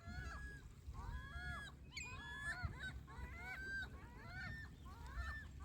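Gulls calling over and over, a quick run of short, pitched, slightly bending cries about two a second, over a steady low rumble of waves and wind at the shore.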